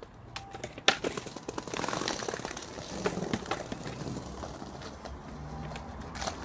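Skateboard wheels rolling over paving, with a sharp clack of the board about a second in and another near the end as a trick is tried.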